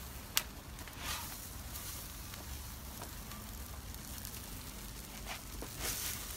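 Hash browns frying on a propane gas cooker, a steady light sizzle, with a sharp click about half a second in and a few softer taps later.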